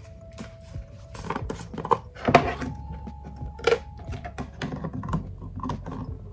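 Light clicks, taps and knocks of skincare products being handled as toner pads are taken out and used, with louder knocks about two and a half and three and a half seconds in.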